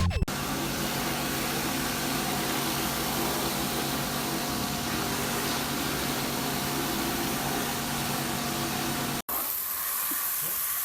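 Pressure washer running: a steady machine hum under the hiss of the water jet spraying. About nine seconds in it cuts abruptly to a lighter spray hiss without the hum.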